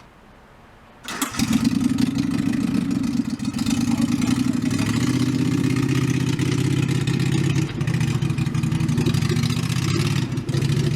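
A vehicle engine comes in abruptly about a second in and runs loudly while pulling a loaded sled, its pitch shifting around five seconds in as it works harder.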